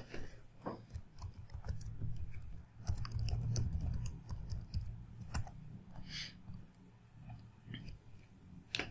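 Computer keyboard typing: a fast run of key clicks over a low rumble for the first five seconds or so, then a few scattered clicks.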